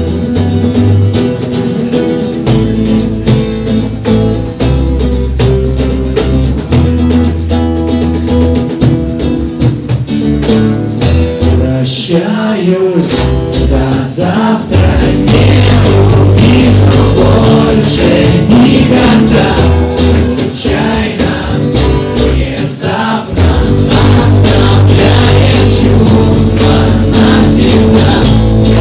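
Instrumental passage of a song: band music with hand percussion keeping a steady rhythm. About twelve seconds in there is a sweeping change, and from about fifteen seconds the music gets fuller and louder with heavier bass.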